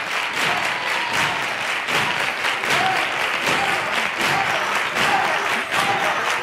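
Studio audience applauding steadily at the end of a song, with a few voices calling out over the clapping.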